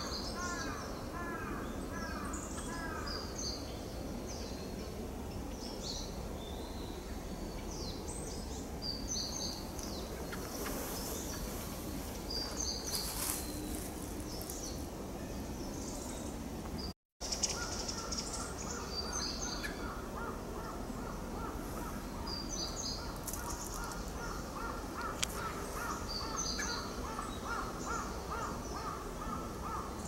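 Pale thrush calling: scattered short, harsh call notes among high thin notes, over a steady outdoor background, with a brief drop-out a little past halfway.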